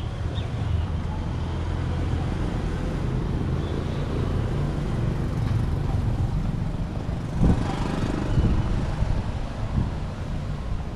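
A motor vehicle's engine running close by as street traffic, a steady low hum, with a couple of brief louder knocks about seven and a half and eight seconds in.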